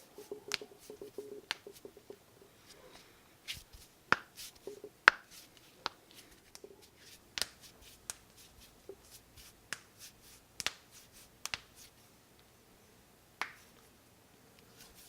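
Knuckle joints cracking: a long string of sharp pops at irregular intervals, the loudest about five seconds in.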